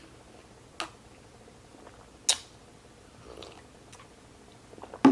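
Quiet mouth sounds of someone eating: chewing with two sharp clicks or smacks, the second, a little past two seconds in, louder than the first.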